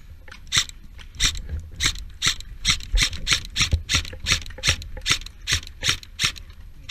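Quick footsteps crunching in snow and ice, a regular pace of about three steps a second.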